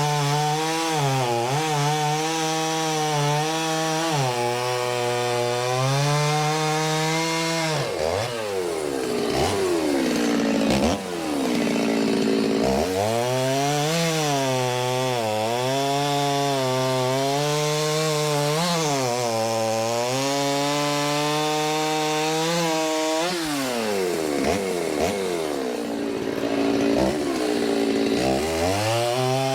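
Stihl chainsaw cutting through oak logs, its two-stroke engine held at high revs and wavering in pitch as the chain bites into the wood. The throttle drops back toward idle three times and revs up again between cuts.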